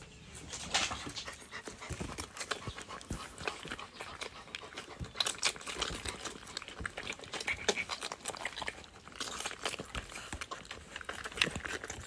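Labrador retriever mother and her six-week-old puppies: a dog panting amid many quick small clicks and smacks as the puppies clamber over her and nurse.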